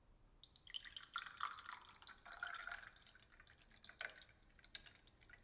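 Fresh ginger-shot juice poured in a thin stream into a small glass tumbler, splashing and trickling as it fills. It grows quieter after about three seconds, with a few separate drips near the end.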